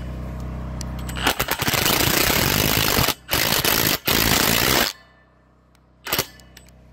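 Cordless impact driver hammering a bolt tight on a steel pipe clamp that holds a Unistrut channel to a 2-inch steel post: three rapid rattling runs with short breaks between them, then one brief burst near the end.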